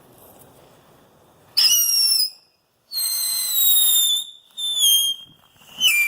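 Whistling effects from a consumer firework cake: four shrill whistles, one after another. The first starts about a second and a half in with a sharp upward swoop. The longer ones that follow each slide slowly down in pitch.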